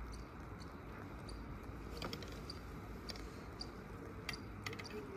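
Riding a CTEC-built chairlift mid-span: a steady low rumble with scattered light clicks and creaks, growing more frequent in the second half.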